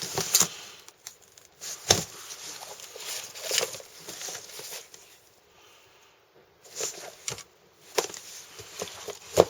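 Books and cardboard boxes being handled: scattered knocks and thumps with rustling between them, the sharpest about two seconds in and near the end, and a quieter pause about halfway through.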